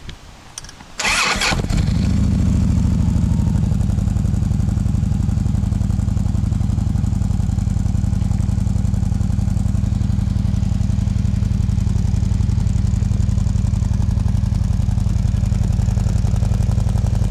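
Harley-Davidson Road King's air-cooled V-twin cold-started: the starter cranks briefly about a second in, then the engine catches and settles into a steady idle through Screamin' Eagle Fatshotz slip-on mufflers.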